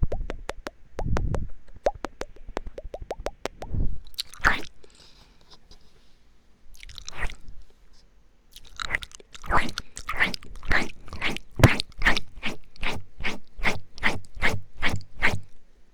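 ASMR ear-eating mouth sounds: a quick run of sharp tongue clicks with a couple of low thumps, then after a pause a steady series of wet smacking sounds, about two to three a second, through the second half.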